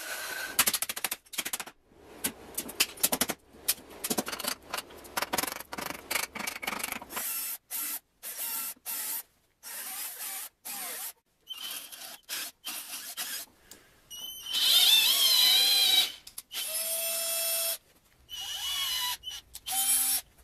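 Workshop tool sounds on a 20-inch bandsaw as its trunnions come off and its blade guides are lowered: short cut-together snippets of metal parts being knocked and fastened. About two-thirds through comes a loud whine with a wavering pitch, the loudest sound, then a short steady tone.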